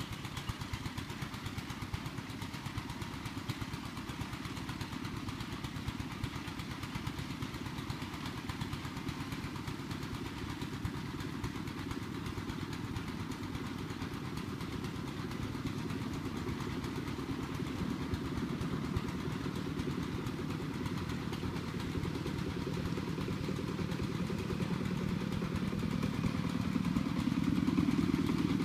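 A small engine running steadily, getting louder over the last few seconds.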